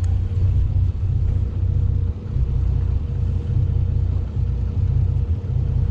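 Steady low rumble of a fishing boat's engine running, with a faint steady hum above it.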